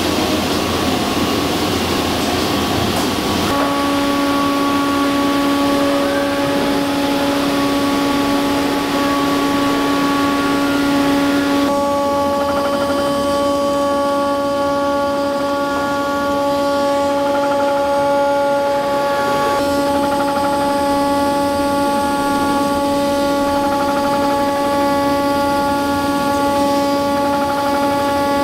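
CNC router cutting a 6061-T6 aluminum sheet on a vacuum hold-down table. A rushing noise is followed about three and a half seconds in by a steady high spindle whine with several overtones, which holds to the end.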